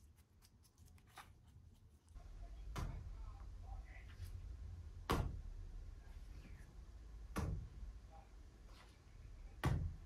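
Structure paste being dabbed onto a canvas: four dull taps about two seconds apart over a low rumble, after a few light scrapes of a brush in a plastic palette.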